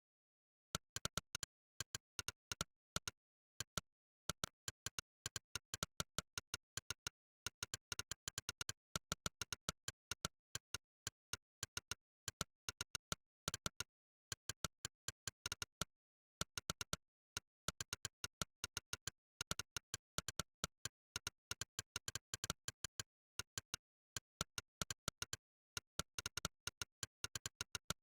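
Monkeytype's synthetic 'click' keypress sound playing on every keystroke of fast typing. The clicks come in quick runs of several a second, with short pauses between runs and one pause of about two seconds near the middle.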